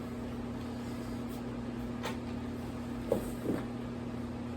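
Steady low hum of room noise, with a few faint knocks and rustles from handling props, about two, three and three and a half seconds in.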